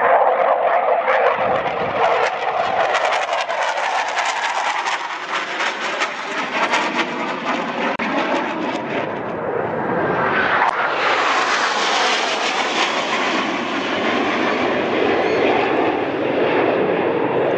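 Jet engine roar from Blue Angels F/A-18 Hornets flying past. It has a crackling rasp in the first half, and a second roar swells up about ten seconds in as a formation of four passes.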